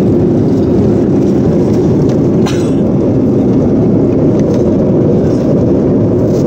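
Steady cabin noise inside an Airbus A330-300 airliner in cruise, the engine and airflow drone sitting low and even. A single brief click about two and a half seconds in.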